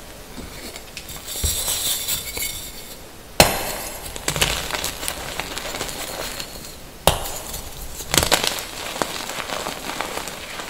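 Blocks of gym chalk crushed by hand: crunchy, gritty crumbling of dry powdery chalk, with a sharp snap a little over three seconds in, the loudest sound, and more snaps of chalk breaking later on.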